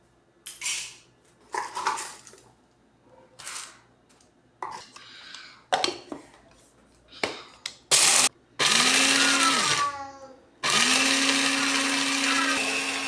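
An electric coffee grinder grinds whole coffee beans. A few knocks and rattles come first as it is readied. The motor then runs in two goes past the middle, a short one of about a second and a half and then a longer one, its pitch rising each time as it spins up.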